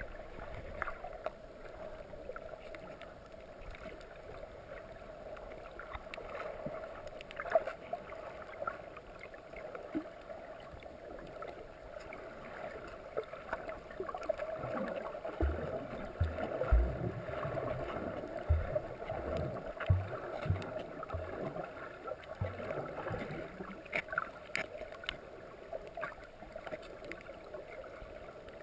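Muffled underwater noise from a camera held below the surface, a steady dull hiss of moving water. A string of low thumps and knocks comes through the middle, with a few sharp clicks here and there.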